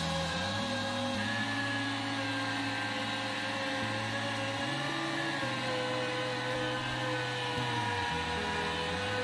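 Electric car polisher with a foam pad running steadily under load, buffing polishing compound into fresh paint on a car panel. It makes a steady motor whine whose pitch wavers slightly as it is pressed and moved.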